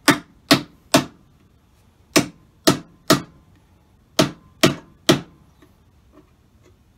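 Hammer driving thin hive nails flush into a wooden patch on a Langstroth hive box: sharp strikes in three quick runs of three, about half a second apart, then a couple of light taps near the end.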